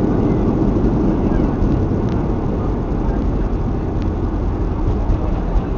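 Cabin noise of a Boeing 737-500 on its landing rollout, spoilers up: a steady low rumble of engines and runway that eases slowly as the aircraft slows, with a few faint ticks.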